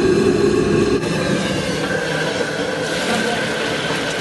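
Starch-coated potato and eggplant pieces deep-frying in a wok of hot oil, a continuous sizzle as a metal ladle turns them.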